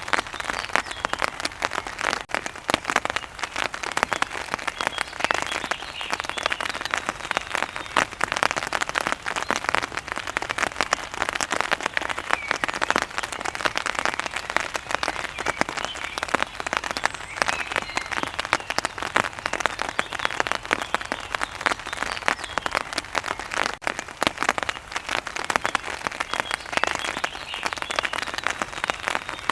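Steady rain: a dense, unbroken patter of individual drops striking a surface.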